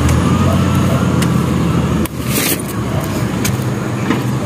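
Motor vehicle engine running steadily, with a brief scuff about two seconds in.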